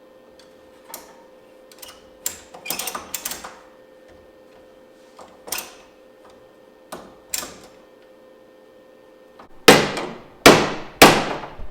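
Light clanks and rattles of steel tools and parts, then near the end about four loud hammer blows on the truck's sheet-metal body panel, each ringing briefly.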